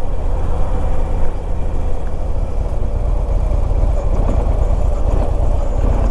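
Harley-Davidson Ultra Limited's V-twin engine running with a steady low rumble.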